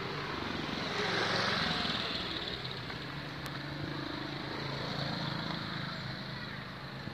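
Road traffic: a motor vehicle's engine passing on the road by the level crossing, swelling about a second in and then easing, over a steady low engine hum.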